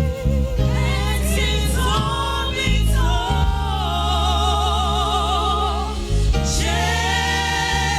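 Gospel praise-and-worship music: singing with long held notes that waver in vibrato, over instrumental accompaniment with steady bass notes.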